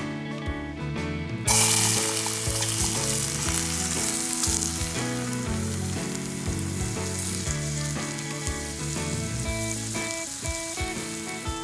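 Food sizzling in hot oil in a camp cooking pot, the hiss starting suddenly about a second and a half in as the food goes in and sizzling steadily after, over background acoustic guitar music.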